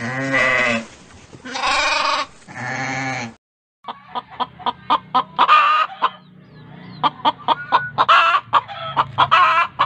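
Three wavering bleats from lambs, each under a second long. Then, after a short pause, a flock of hens clucking in quick, short calls, with a few longer cackles among them.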